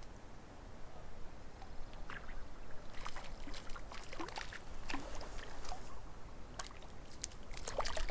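Lake water splashing and sloshing in a series of small, irregular splashes, as a hooked Arctic grayling thrashes at the surface while being brought in.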